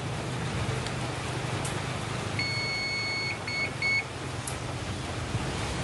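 A high electronic beep about two seconds in, held for about a second, then two short beeps. It sounds like a power-on signal from the lithium iron phosphate starter battery as its on button is pressed before starting the engine.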